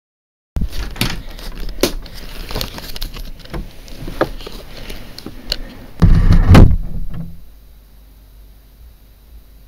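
Handling noise from a handheld camera being moved in the dark: rubbing with a string of sharp clicks and knocks, then a heavy low thud about six seconds in, after which the sound drops away.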